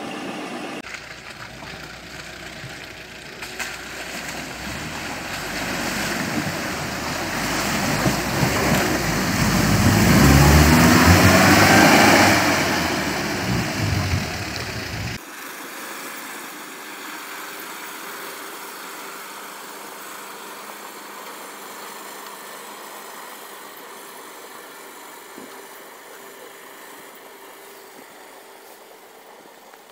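Off-road vehicle engine working hard, revving up and climbing in pitch to its loudest about ten to twelve seconds in. It cuts off abruptly about fifteen seconds in, giving way to a quieter, thinner, steady engine sound.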